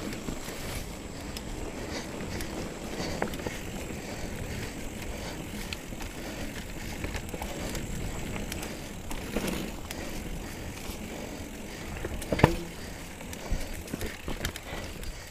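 2017 Trek Remedy 7 full-suspension mountain bike riding a dirt trail: steady rolling noise with scattered rattles and knocks from the bike. The loudest is a sharp clunk about twelve seconds in.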